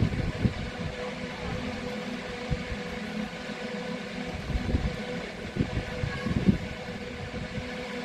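Wind buffeting the microphone in irregular gusts, over a steady hum.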